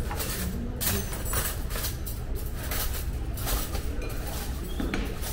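Dishes and cutlery clinking irregularly at a buffet over a steady low room hum.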